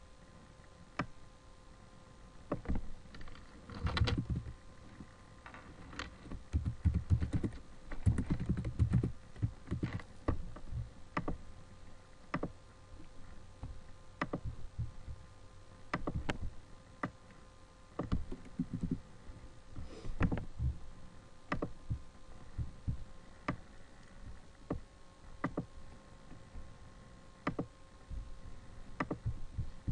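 Typing on a computer keyboard, in short runs of key clicks with single clicks spaced out between them.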